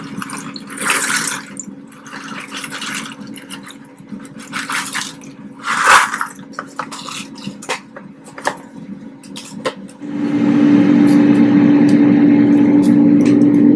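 Pasta bubbling in boiling water in a pan, with a spoon stirring and splashing. About ten seconds in, a Ninja air fryer's fan takes over with a loud, steady hum.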